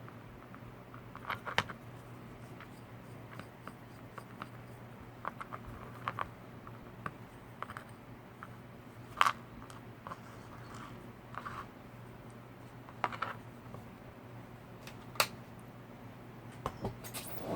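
Scattered small clicks and snips of hand tools and tiny plastic parts as a brushed micro quadcopter is taken apart, the sharpest about a second and a half in, near the middle and near the end, over a faint steady low hum.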